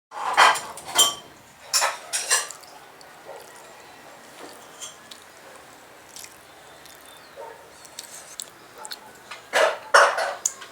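Cutlery clinking and scraping against plates during a meal. There are several sharp clinks in the first couple of seconds, a quieter stretch, and another cluster of clinks near the end.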